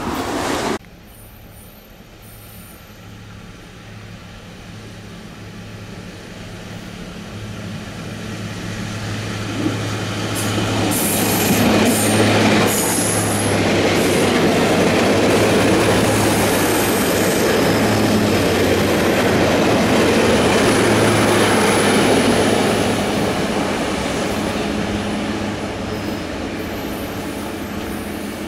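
A Taiwan Railway diesel multiple unit approaches and passes at close range. Its steady engine hum grows louder over about ten seconds into a loud rumble of wheels on rail, with short high-pitched wheel squeals about ten to fourteen seconds in, and then slowly fades as the train moves away.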